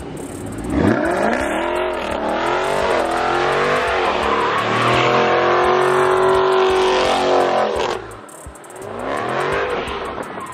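Dodge Charger Scat Pack's 6.4-litre HEMI V8 revving hard while the car spins a donut with traction control off and its rear tyres spinning. The revs climb about a second in and hold high, drop briefly near the end, then rise again.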